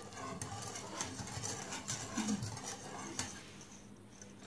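Wire whisk stirring thickening custard in an aluminium pot, with light clicks and scrapes of the metal wires against the pot, growing quieter near the end.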